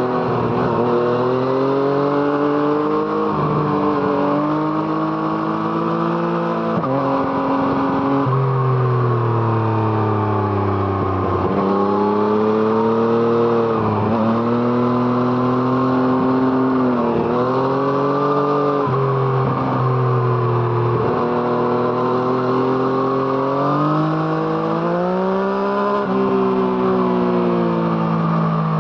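Yamaha MT-09's 847 cc inline three-cylinder engine through an Arrow Thunder aftermarket exhaust, ridden hard. The engine note climbs in pitch under throttle, then falls away sharply, again and again every few seconds.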